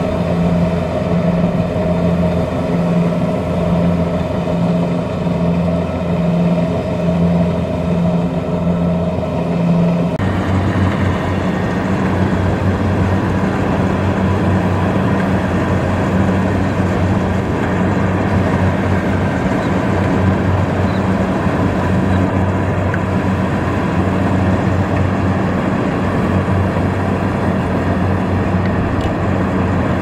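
Kubota DC-70 rice combine harvester's diesel engine running steadily as it harvests, with a regular pulsing throb in its low note. About ten seconds in, the sound changes abruptly to a slightly different, steady engine note.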